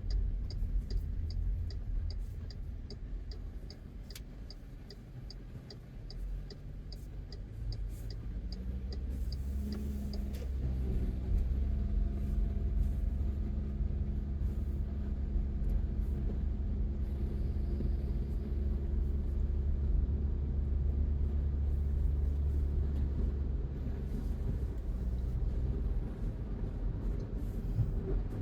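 Car driving on the road: a steady low rumble of engine and tyres. It grows louder about a third of the way in and takes on a steady engine hum. A regular light ticking, about two or three a second, runs through the first third and then stops.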